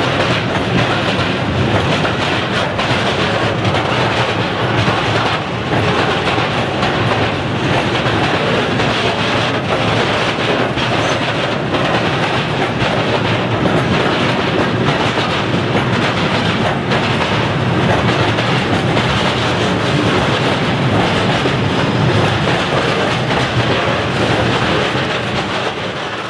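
Freight train of bogie tank wagons rolling past close by: a steady rumble of steel wheels on rail, with the clickety-clack of wheelsets crossing a bolted rail joint.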